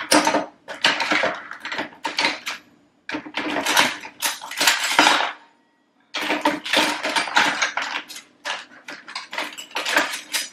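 Kitchen utensils and cutlery clattering and clinking as they are pulled out of a drawer and set down, in quick irregular runs with a brief pause a little past the middle.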